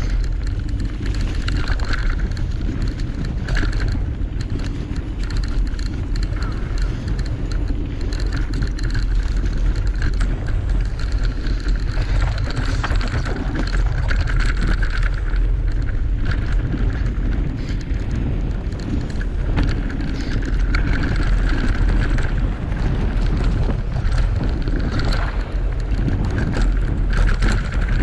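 Electric mountain bike ridden down rough singletrack: wind buffeting the microphone over tyres rolling on the trail, with frequent short rattles and knocks from the bike.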